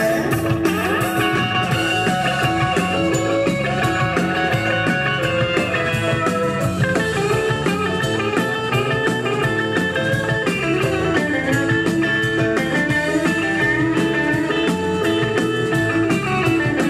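Live rock and roll band playing an instrumental break: a lead electric guitar solo on a Stratocaster-style guitar over steady drums.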